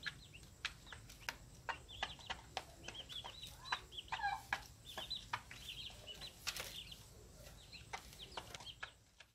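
A brood of young chicks peeping continuously in short, high chirps while feeding, with a lower descending call about four seconds in. Sharp ticks throughout from beaks pecking at a plastic feed dish.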